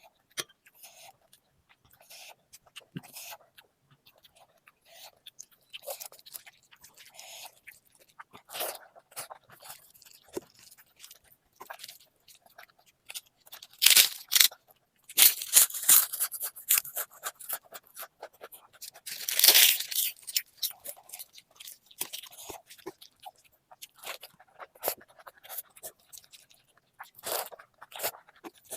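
A person eating, chewing and crunching food, with many short clicks and a few louder, noisier stretches near the middle.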